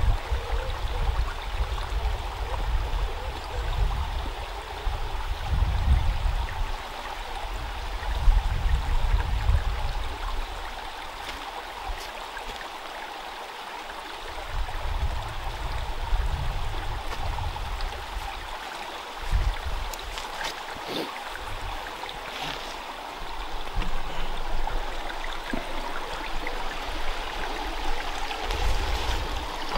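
A small stream running steadily over stones, with an irregular low rumble on the microphone coming and going.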